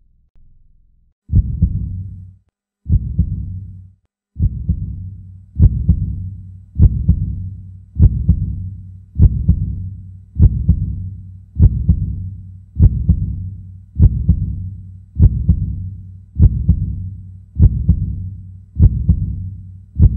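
Heartbeat sound effect: deep double thuds that start slowly, with the first few about a second and a half apart, then settle into a steady beat about every 1.2 seconds.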